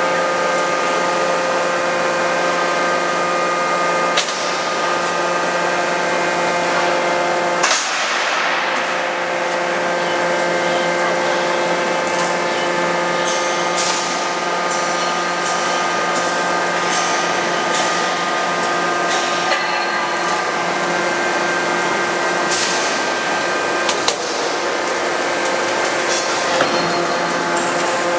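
Forging hammer shop: the hammer's hydraulic drive runs with a steady, multi-tone hum, broken by about six sharp metallic impacts, the strongest about eight seconds in with a short ring.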